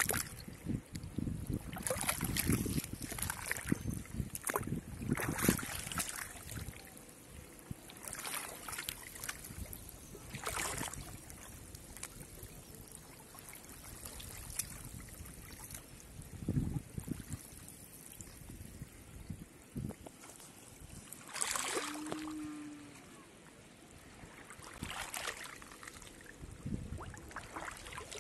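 Pond water splashing and sloshing in irregular bursts as a man wades waist-deep through lily pads, working a bamboo polo fish trap.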